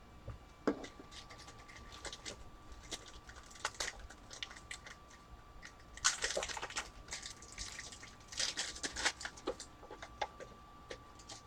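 Trading cards and plastic sleeves being handled: soft clicks and short crinkly rustles, loudest in two spells about six and eight and a half seconds in.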